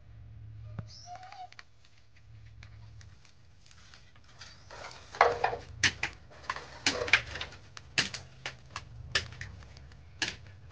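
Dry twigs crackling and snapping as a freshly lit wood fire catches under a sheet-metal cookstove. Sharp, irregular snaps, several a second, come thick from about four and a half seconds in.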